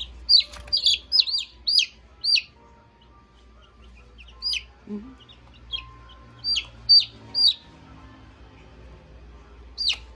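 Newly hatched chicks peeping: loud, short, high-pitched peeps, a quick run of about eight in the first two and a half seconds, then a few scattered peeps in the middle and another near the end.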